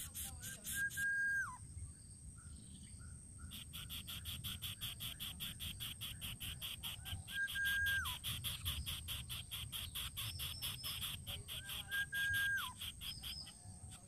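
Insects trilling in fast, even pulses over a steady high whine, an outdoor insect chorus. Three times, a short flat whistled call cuts through and drops in pitch at its end; these whistles are the loudest sounds.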